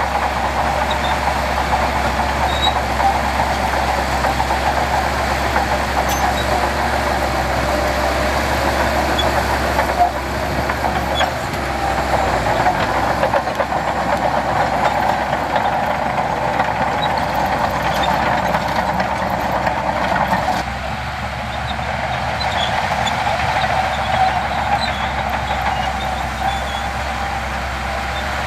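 Heavy diesel earthmoving machinery running steadily at work. The level drops slightly about twenty seconds in.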